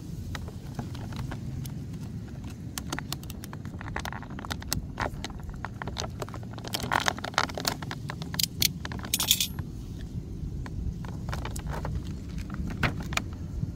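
Clear plastic blister packaging crinkling and crackling as it is handled and cut with a snap-off utility knife, giving many sharp irregular clicks, with a sharper crackle about nine seconds in. A steady low rumble runs underneath.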